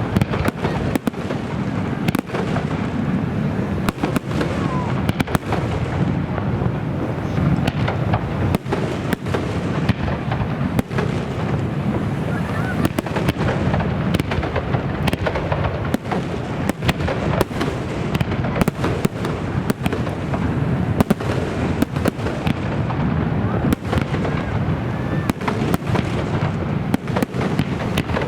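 Aerial fireworks display going off continuously: dozens of sharp bangs from bursting shells, several every second, over a constant rumbling crackle.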